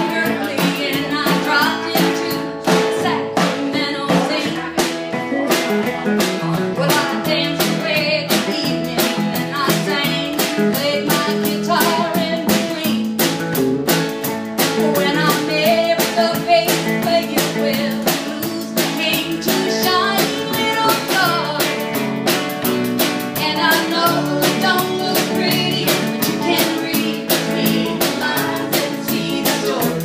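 A small country band playing a song live: electric lead guitar over a strummed archtop acoustic guitar, upright bass and a drum kit, keeping a steady beat.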